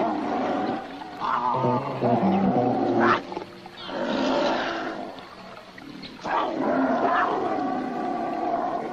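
A cougar and a black bear snarling at each other: a run of harsh snarls and growls, several starting suddenly, as a threat display between the two animals.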